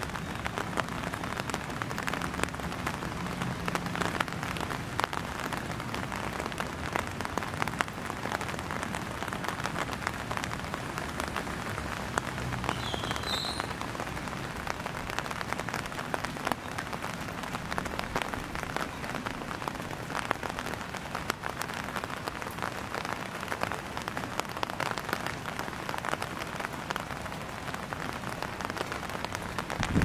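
Steady rain falling, with many small sharp drop hits throughout.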